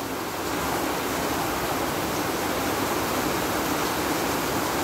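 Heavy tropical-storm rain pouring down steadily, an even, dense hiss.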